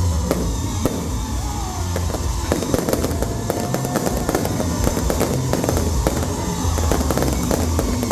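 Fireworks and firecrackers going off, a dense, continuous crackle of rapid irregular pops with no break.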